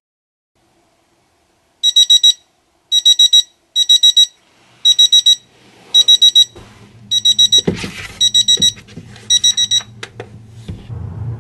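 Bedside alarm beeping in rapid groups of four high-pitched beeps, about one group a second, starting about two seconds in and stopping near ten seconds as it is snoozed. A brief rustle of movement comes about eight seconds in.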